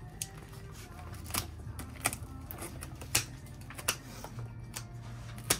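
Sharp, irregular clicks and snaps, about seven in five seconds, over quiet background music.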